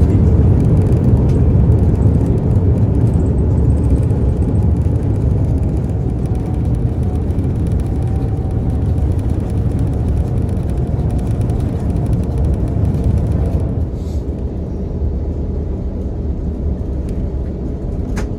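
Cabin noise of an Airbus A350-900 rolling on the ground after landing: a steady low rumble from its Rolls-Royce Trent XWB engines and the airframe, slowly getting quieter as the aircraft slows.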